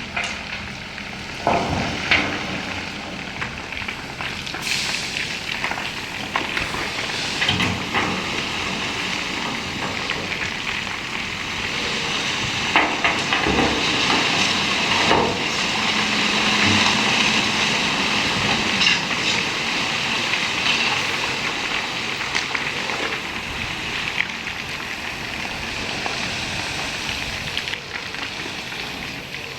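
JCB machine working at an earthmoving site: a steady, noisy hiss with scattered knocks and clatters.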